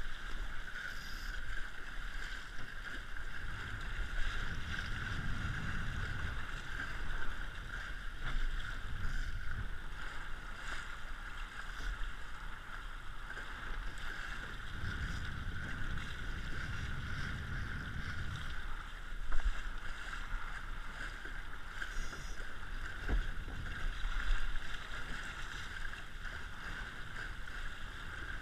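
RS100 sailing dinghy under way: water rushing and splashing past the hull with wind buffeting the camera microphone. A low wind rumble swells twice, about 4 seconds in and again about 15 seconds in, and there is a sharp knock about 19 seconds in.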